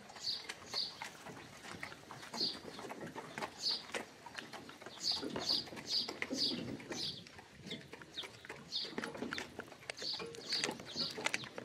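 Hooves of a pair of carriage animals clip-clopping at a walk on a packed dirt street, with frequent short high chirps throughout.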